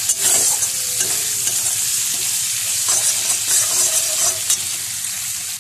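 Chopped tomato, green chilli and ginger with ground spices sizzling in hot mustard oil in a metal kadhai, stirred and scraped with a steel spatula while the masala is being fried down for a dal tadka.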